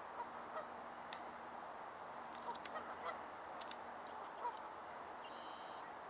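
Distant waterfowl calling on a lake: short calls scattered over steady background noise, the loudest about four and a half seconds in, with a brief high chirp near the end.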